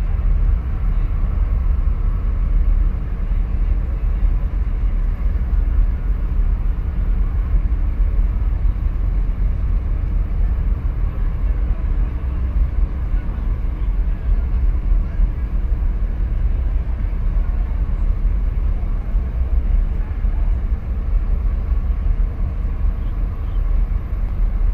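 Wind buffeting the microphone: a steady low rumble that flutters in loudness, with no distinct events.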